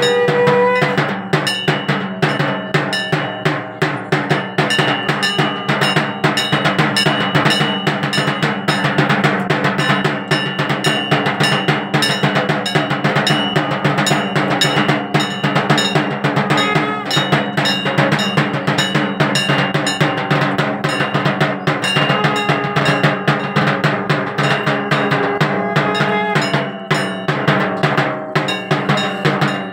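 Fast, continuous drumming with metal percussion struck alongside it. A held, steady tone ends about a second in.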